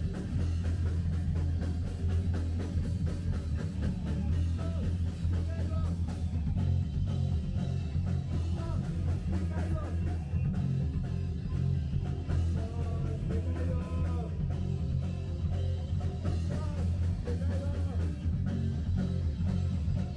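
Rock band playing a song live: a singer on microphone over electric bass, electric guitar and a drum kit.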